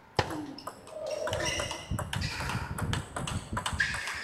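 Table tennis rally: a series of sharp clicks as the ball is struck by the paddles and bounces on the table.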